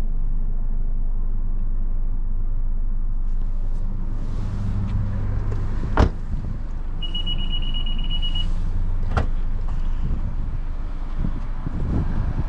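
Steady low hum of a car running, with two sharp knocks about three seconds apart and a steady high-pitched beep lasting about a second and a half between them.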